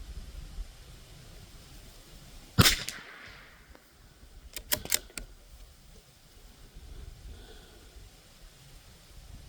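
A single .22 LR rifle shot from a Winchester Xpert bolt-action rifle, sharp with a short ringing tail, followed about two seconds later by four quick metallic clicks as the bolt is worked.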